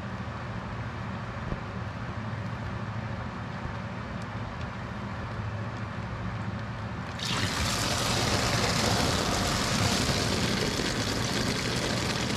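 Old coolant starts to run suddenly from the engine's drain into a plastic bag about seven seconds in, then keeps pouring as a steady splashing stream. Before that only a steady low hum is heard.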